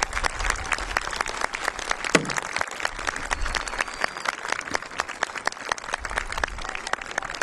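Crowd applauding, a dense patter of clapping that gradually thins out, with one brief falling tone about two seconds in.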